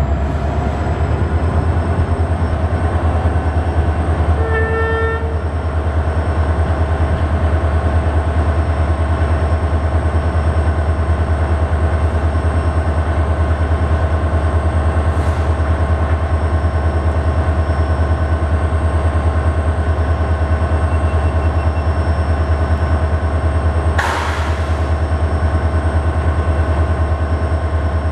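A short train horn toot about four and a half seconds in, over a steady low mechanical drone with faint constant whines. A single sharp clank comes near the end.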